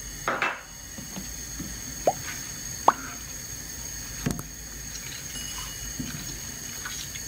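Sugar water sloshing and plopping in a saucepan as it is stirred with a silicone spatula, with bay leaves, cinnamon sticks and cardamom pods in it. Two short rising plops come about two and three seconds in, and a light knock a little later.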